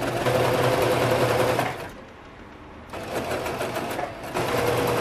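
Domestic electric sewing machine stitching fabric at a steady speed. It stops for about a second around two seconds in, then runs again.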